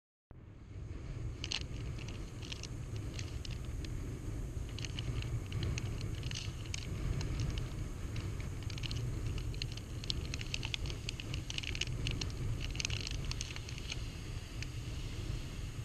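Shoreline ambience: a steady low rumble of wind and small waves on the camera's microphone, with many short scattered crackles and ticks over it.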